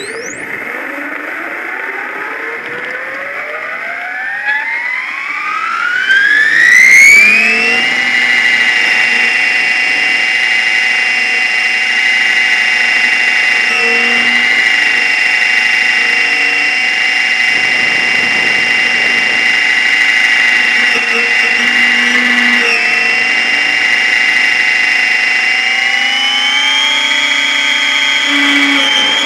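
RC helicopter's motor and main rotor spooling up, a whine rising steadily in pitch for about eight seconds as the T-Rex 800 lifts off, then holding a steady high whine in flight, climbing slightly in pitch near the end. Heard from a camera mounted on the helicopter's own frame.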